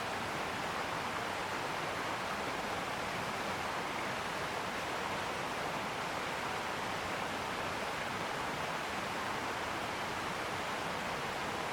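A steady, even rushing noise with no crackles, knocks or voices, starting abruptly and holding one level throughout.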